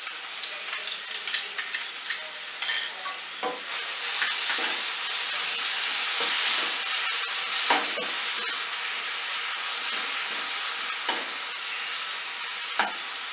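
Tomato paste frying in hot oil and spice masala in a nonstick kadhai, stirred with a steel spoon. Light clicks and taps of the spoon come first. About four seconds in, a loud sizzle rises as the paste fries, then slowly dies down, with the spoon scraping the pan now and then.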